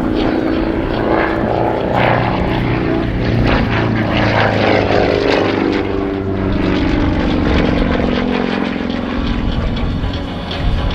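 Pitts Model 12's nine-cylinder radial engine and propeller running at display power, with the engine note sweeping down in pitch around the middle as the aircraft manoeuvres past.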